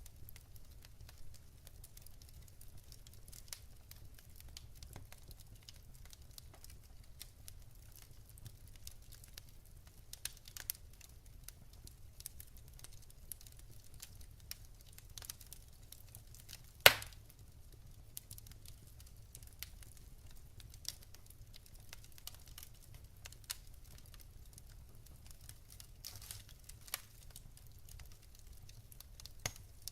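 Wood fire burning in a fireplace, crackling with scattered small clicks and one loud sharp pop a little past halfway.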